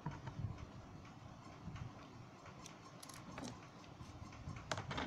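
Light clicks and taps from a small plastic mobile phone being handled as a SIM card is fitted into it, with a few sharper clicks about three seconds in and again near the end.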